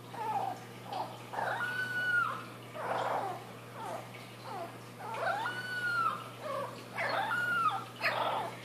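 Young Boston Terrier puppy howling: a run of high-pitched yelps and little howls, three of them longer, each rising, holding and then falling away, with short breaks between.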